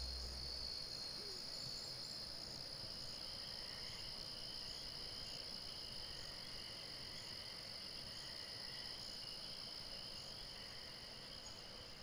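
Faint chorus of night insects: steady high trilling, with a soft chirp repeating a little more than once a second.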